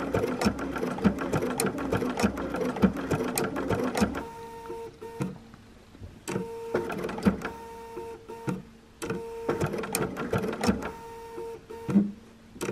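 Domestic sewing machine sewing a blanket stitch slowly around a tight curve of a small appliqué. It runs steadily with a regular clicking of stitches for about four seconds, then goes in short separate bursts of a few stitches each with the motor's whine, with pauses between.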